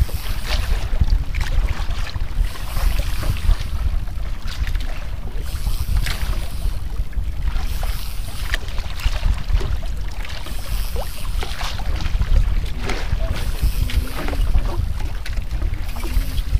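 Wind rumbling on the microphone, with water sloshing and slapping against the hull of a small outrigger boat.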